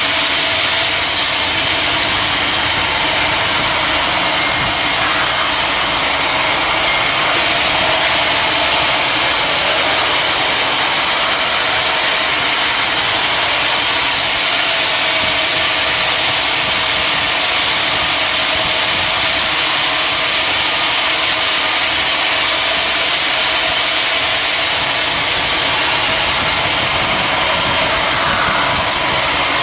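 Sawmill saw running steadily, a loud, even mechanical noise that holds constant throughout.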